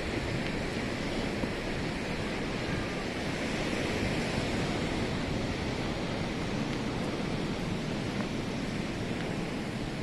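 Ocean surf washing steadily on a Pacific beach, with wind rumbling on the microphone.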